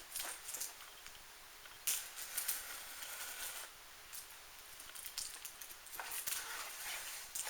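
Packaging being handled while a kit is unboxed: intermittent rustling and crinkling, with louder stretches about two seconds in and again near the end.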